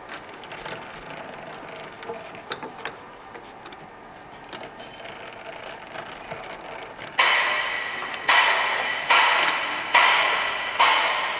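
Metal lathe's three-jaw chuck being tightened with its chuck key onto a plastic rod. Light handling clicks come first, then, about seven seconds in, five loud metallic clanks that ring out, each under a second apart.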